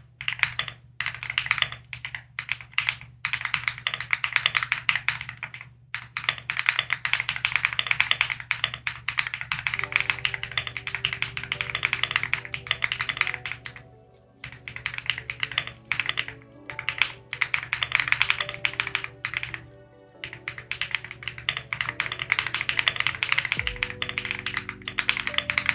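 Fast typing on a custom mechanical keyboard, a rapid run of key clicks and clacks in long bursts broken by a few brief pauses, over lofi background music.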